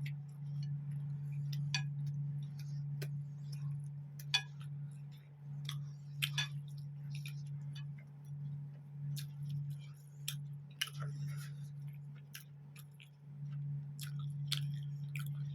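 A person chewing and smacking food in the mouth, heard as irregular sharp wet clicks, over a steady low hum.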